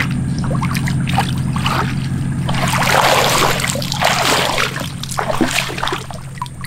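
A small boat engine idling steadily, with water splashing and trickling over it for a couple of seconds in the middle, as a loach trap is handled and emptied in the water.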